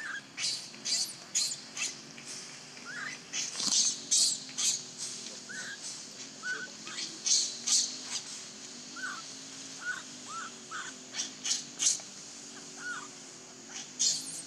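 Baby macaque screaming in short, shrill cries, one after another about once or twice a second: the distress crying of an infant left without its mother.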